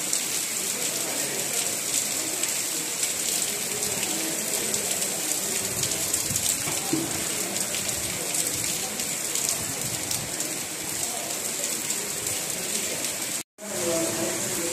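Heavy rain pouring onto waterlogged ground: a steady, dense hiss of drops splashing into standing water. It cuts out for a moment near the end, then the downpour resumes.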